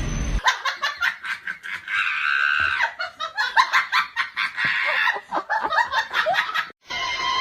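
High-pitched laughter in rapid bursts of several a second, cut off suddenly near the end.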